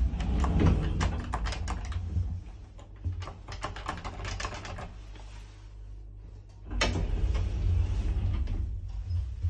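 Uniheis traction elevator car: clicks and rattles around a floor-button press, with a low rumble underneath. About seven seconds in, a sharp clunk is followed by a steady low rumble as the car sets off.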